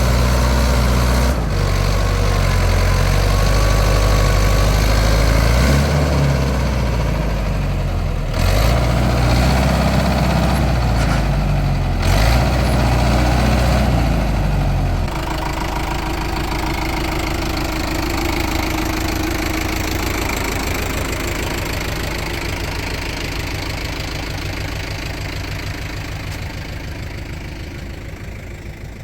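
Heavy diesel machinery engine running steadily, with a few short knocks in the first half. About halfway through it drops suddenly to a lower, quieter note that slowly fades away.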